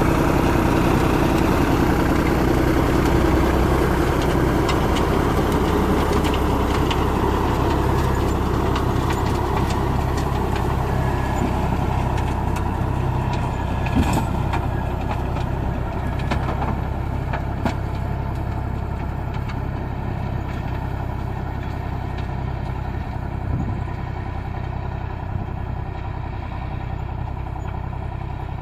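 Tractor engine running steadily as it works a ridge-forming and mulch-film laying implement, slowly growing fainter, with a sharp knock about 14 seconds in and a lighter one a few seconds later.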